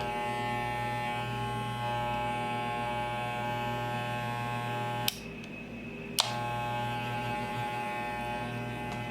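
Wahl Balding electric hair clippers running with a steady buzzing hum, tested on a newly installed power cord. About five seconds in, a click cuts most of the buzz for about a second, and a second click brings it back. The clippers keep running with no breaks in the connection.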